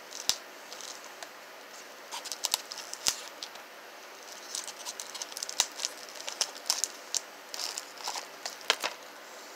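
A knife scraping and picking at the plastic shrink wrap on a DVD case, with crinkling of the wrap: irregular small scratches and clicks, with a few sharper ticks.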